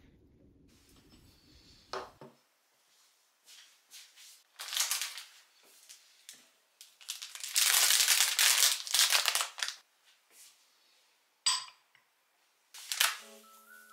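Plastic packaging crinkling and rustling in several bursts, loudest and longest through the middle, with a few short knocks as items are set down on a desk.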